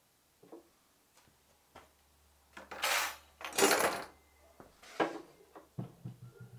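Metal hand tools handled on a wooden workbench: a few light clicks, then two longer metallic scrapes a little under a second each, another shorter scrape, and several dull knocks near the end as a steel square is set against a strip of wood.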